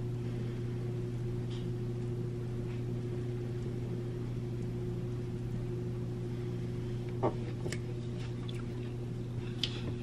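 Steady low electrical hum of a running kitchen appliance, with a faint click about seven seconds in and a couple of small clicks near the end.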